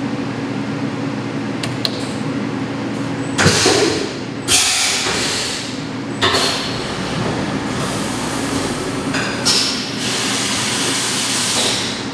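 CNC vertical milling machine starting its program: a steady hum from the running machine with several loud hissing rushes, each a second or two long, as the cycle gets under way; a sharp click comes with the first rush about three and a half seconds in.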